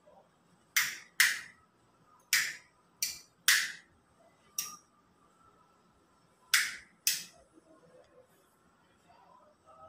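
A series of eight sharp clicks, mostly in pairs about half a second apart, each dying away quickly; they thin out after about seven seconds.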